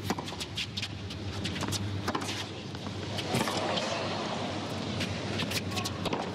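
Tennis rally on a hard court: rackets striking the ball again and again in sharp knocks over steady crowd noise from the stands, which swells a little about halfway through.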